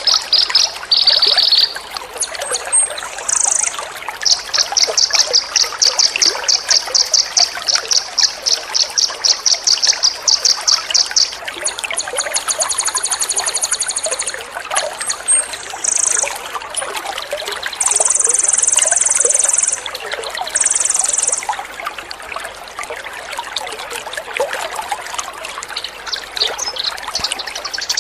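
Water trickling steadily under a songbird's rapid-fire song: long runs of quick, evenly repeated high notes, about three a second, then a few short buzzy high bursts past the middle. It is a bird-training track in which the water is meant to calm the listening bird.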